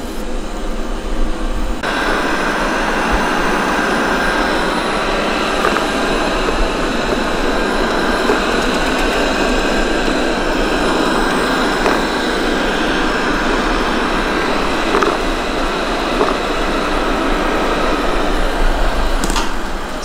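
Amarey A900 robot vacuum running: a steady rushing noise from its suction motor and brushes, louder from about two seconds in.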